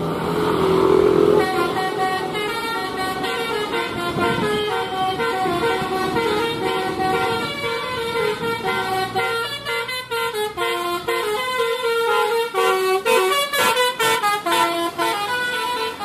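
Bus 'telolet' horn of the Basuri type playing a tune: a held note at first, then a long run of quick, stepped notes going up and down.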